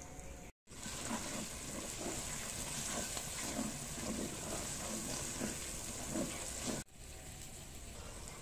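Chopped onion and tomato sizzling in hot oil in a clay pot, stirred with a wooden spatula that scrapes the pot about twice a second.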